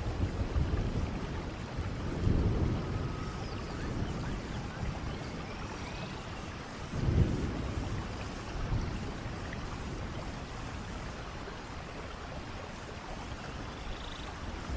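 Steady rain with low rolls of distant thunder, the strongest about two seconds in and about seven seconds in.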